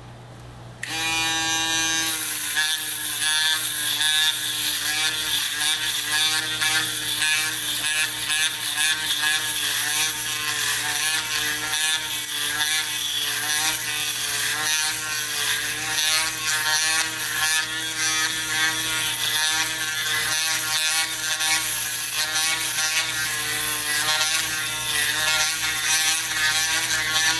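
JVPro Shadow foil shaver switched on about a second in and run over a bald scalp: a loud, steady motor hum with a high hiss, its pitch wavering slightly as the shaver moves over the head.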